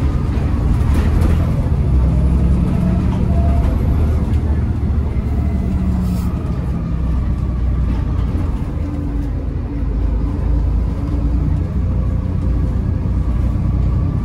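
Interior sound of a Volvo B7TL double-decker bus driving, heard from the lower deck: a steady low drone of its six-cylinder diesel engine and running gear, with the engine note shifting in pitch a few times as it pulls.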